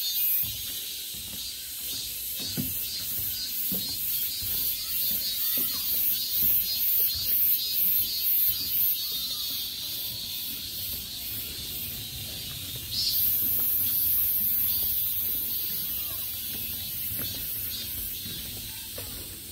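Insects calling in a high-pitched pulsing chirr at about two to three pulses a second; about 13 seconds in a steady high buzz starts suddenly and slowly fades.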